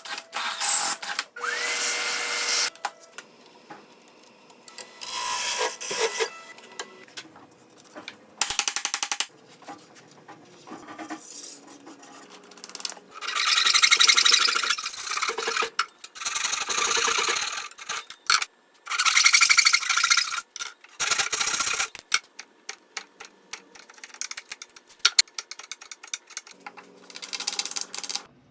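Hand and power tools working wood in a quick string of separate cuts: bursts of scraping and cutting noise broken by sharp knocks and clicks, with a brief rising whine about a second and a half in.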